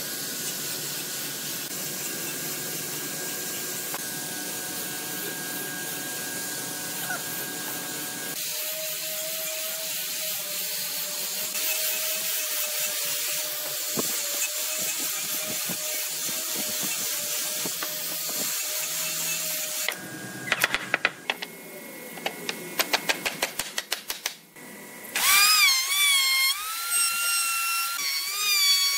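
An angle grinder with a sanding disc runs steadily, sanding a small hardwood block. After a run of sharp clicks, a handheld electric router starts with a loud whine near the end, and its pitch wavers as it works the wood.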